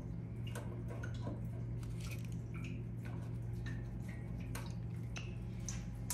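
Faint, scattered small metallic clicks and ticks of a screwdriver and fingers working the screws of a zone valve body on a copper heating pipe, over a steady low hum.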